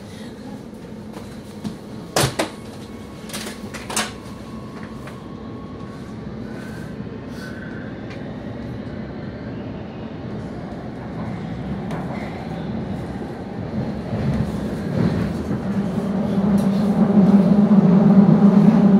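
Oslo Metro train pulling out of an underground station: a few sharp clicks in the first seconds, then the running noise of the car rising steadily as it gathers speed into the tunnel, loudest near the end.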